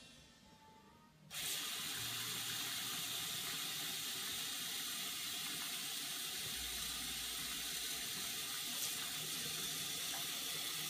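Bathroom sink faucet turned on about a second in, then water running steadily from the tap into the basin and onto a cat lying in it.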